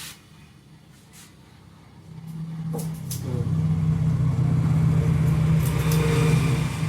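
A few faint clicks, then from about two seconds in a steady motor hum on a few fixed pitches builds up and holds.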